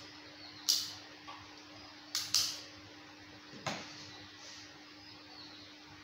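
A few sharp plastic clicks, two in quick succession about two seconds in, then a duller knock as a red emergency-stop button is handled and set down on the bench. A steady low electrical hum runs underneath.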